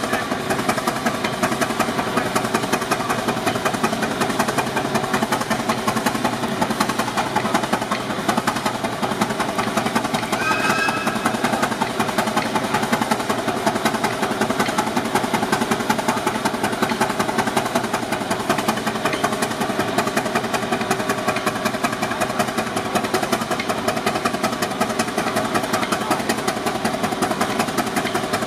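Advance steam traction engine working hard under load on a belt-driven dynamometer: a rapid, even run of exhaust beats from the stack over the engine's mechanical clatter.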